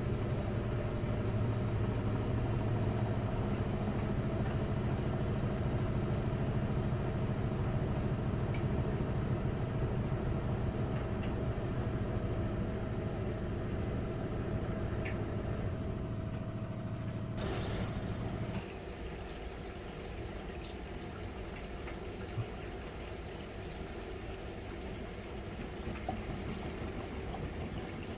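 Miele Novotronic W921 washing machine running mid-programme: a steady motor hum with water sounds, a sharp click about 17 seconds in, then the hum cuts out about a second later and only quieter running water is left.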